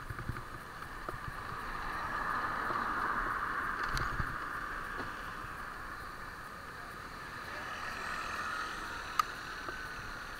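Steady road and wind noise from riding along a city street. It swells twice, and a sharp click comes near the end.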